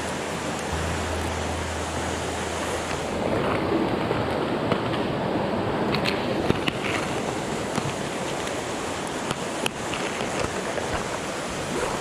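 Shallow mountain stream rushing steadily over rocks. From about three seconds in, hands and a sleeve rub close to the microphone, muffling it, with a few small clicks.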